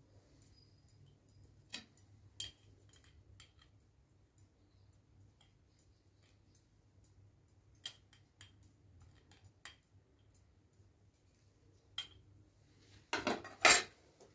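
Scattered light clicks and taps of a metal spoon against a small glazed ceramic spice pot, then a louder clatter of steel dishes and bowls near the end.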